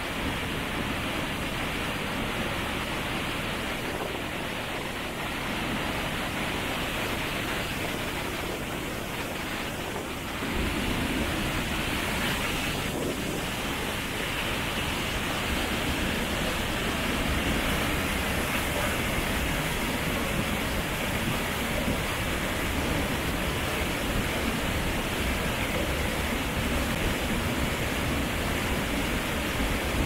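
Steady rush of water from a mountain waterfall, growing louder with a low rumble added about ten seconds in.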